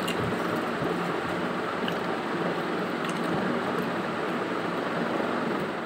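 Steady, even rushing background noise with no change in level, with a couple of faint ticks.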